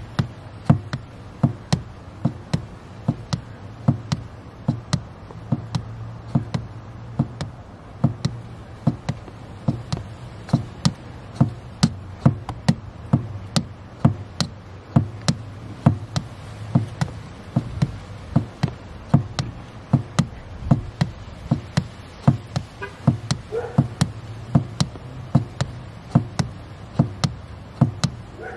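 Car pedal pumped over and over by a foot in a fluffy sheepskin slipper, knocking sharply about twice a second, over a low steady hum.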